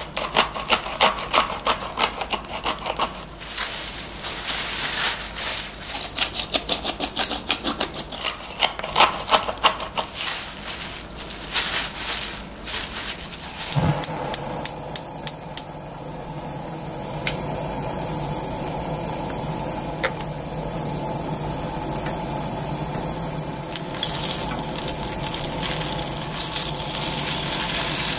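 Hand salt and pepper grinders twisted over a salmon fillet: rapid gritty crackling grinds in spurts. After a cut, a steady hum under an empty pan on the stove, then about 24 s in the salmon starts sizzling in the hot pan.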